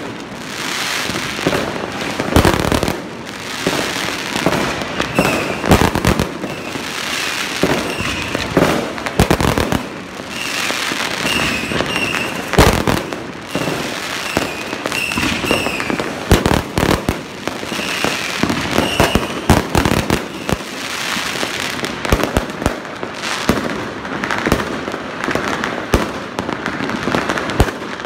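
Many fireworks going off at once: sharp bangs of aerial shells bursting at uneven intervals over a continuous crackling din, with a few short high-pitched tones in the middle stretch.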